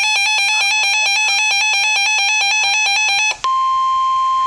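A loud, rapidly pulsing electronic alert alarm cuts off about three seconds in. A single steady high tone takes over: the NOAA Weather Radio warning alarm tone that comes before a tornado warning broadcast.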